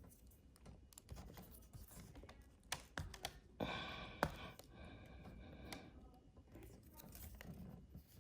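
Plastic pry tool clicking and scraping against a laptop's screen assembly while lifting a piece of adhesive tape, with a louder rasp about halfway through.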